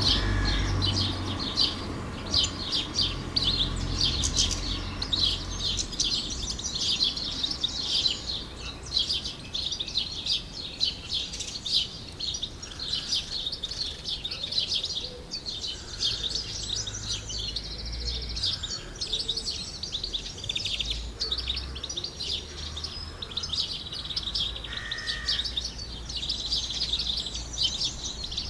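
Many birds chirping and singing at once in a dense, continuous chorus, with a low rumble underneath at times.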